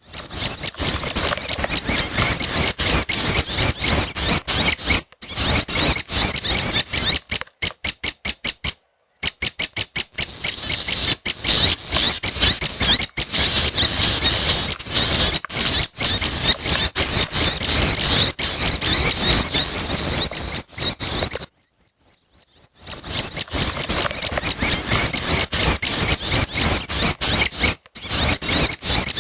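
Juvenile prenjak birds calling in a loud, rapid, continuous chatter of high chirps. The chatter comes in long runs, broken by two brief pauses, one around nine seconds in and one around twenty-two seconds in.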